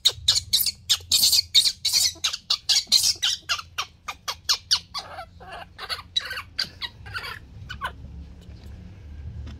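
Baby monkey crying in rapid high-pitched shrieks, about four a second. The cries grow weaker and further apart and stop near the end, as it starts sucking milk from a bottle: hungry crying for its milk.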